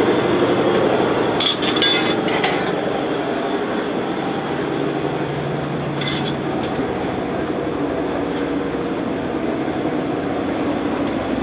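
Steady engine drone heard inside the cabin of a motor vessel under way, with a short run of metallic or glassy clinks about a second and a half in and another clink around six seconds.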